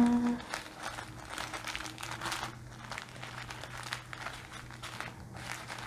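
Small plastic bags of diamond-painting drills crinkling and rustling as they are picked up and sorted by hand, with irregular light clicks and rustles.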